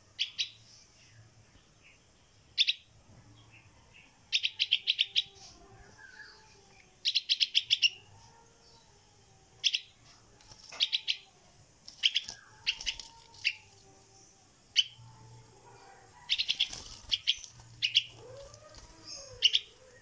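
Yellow-vented bulbul fledgling calling for its parent: loud, sharp, high chirps, some single and some in quick runs of five to eight notes, repeated every second or two.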